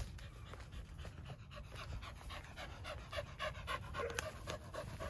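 A dog panting close by, quick and rhythmic, with its tongue out.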